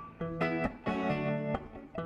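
Guitar strumming chords, each one struck and left to ring, about three strums in two seconds.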